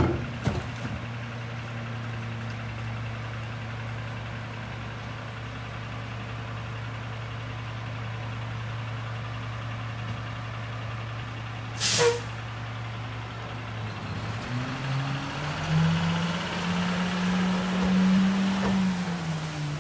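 McNeilus rear-loader garbage truck's diesel engine idling steadily. About 12 seconds in there is a short, loud air-brake hiss as the brakes release. The engine then revs up, holds for a few seconds and eases off as the truck pulls away.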